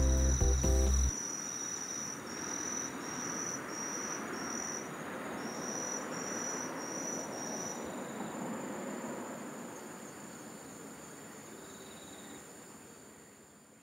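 A cricket-like insect trilling high, first in one long stretch and then in short pulses about two a second, stopping about eight seconds in, over an outdoor hiss that fades away toward the end. Background music plays for the first second.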